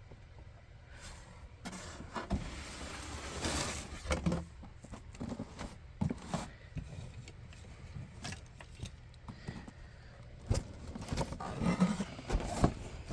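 Irregular handling noises from a cardboard box and its packaging being worked open: rustling, scraping and light knocks and clicks.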